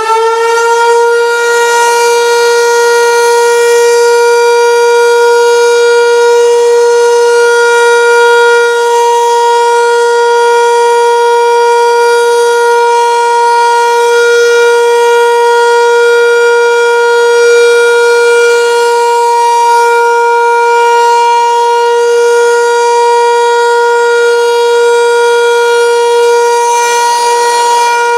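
Landert MSL-6 motor siren sounding the civil-defence 'Warnung' (warning) signal, a three-minute steady tone. It finishes winding up about a second in, then holds one loud, steady tone.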